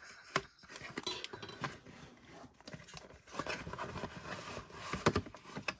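Faint rustling and scattered small clicks as the packaging of a LEGO set is handled: bags of bricks and a paper pouch being moved and opened. A few sharper clicks come near the end.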